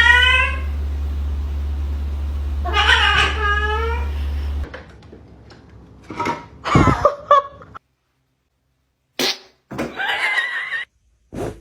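Cats meowing and yowling in a string of separate calls, some drawn out with falling pitch and one wavering near the end. A steady low hum runs under the first few seconds and stops abruptly.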